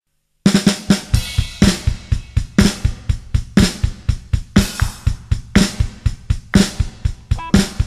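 Drum kit playing the opening beat of a rock song, starting about half a second in. A steady bass-drum pulse of several beats a second, with a louder cymbal-and-snare hit about once a second.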